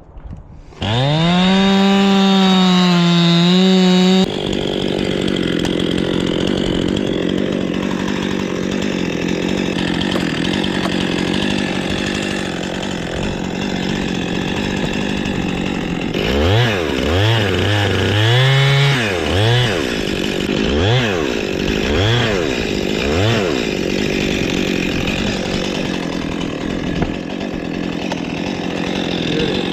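Chainsaw revving up about a second in and held at high throttle. It then settles into a steady, rougher note, typical of the chain cutting through black walnut wood. From about halfway the engine rises and falls in pitch several times in quick succession as the throttle is blipped.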